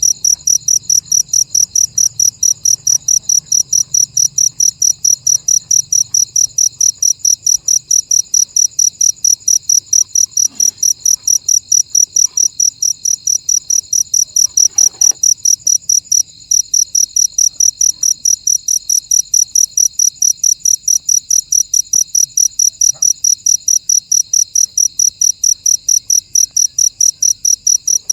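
Cricket chirping in a steady, high-pitched rhythm of about three to four chirps a second, with a brief break partway through.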